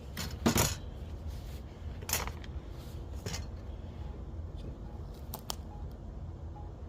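A few sharp metallic knocks and clinks from a Weber kettle grill's metal leg and wheel parts being worked while the wheels are fitted. The loudest knock comes about half a second in, two more follow over the next three seconds, and softer clicks come near the end.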